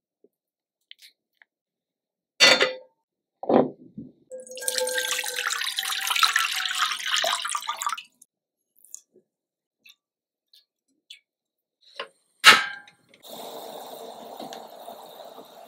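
Water poured into a pot for about four seconds, after two sharp knocks. Near the end, after another sharp knock, water boiling steadily in the pot.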